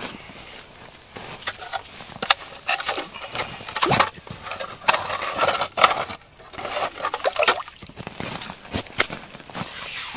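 Hand ice auger scraping and crunching through ice and slush at the edge of an ice-fishing hole, widening it, in a run of irregular gritty scrapes.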